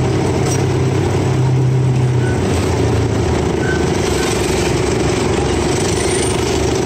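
Engine of a Chance Rides miniature park train running steadily as the train rolls along, a constant low drone that is a little stronger for the first couple of seconds.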